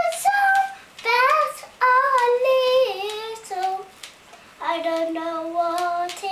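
A young girl singing unaccompanied, in three phrases of held, wavering notes with short pauses between them.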